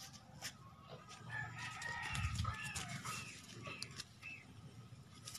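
A rooster crowing, a long wavering call starting about a second in, with a low rumble about two seconds in and faint scattered clicks.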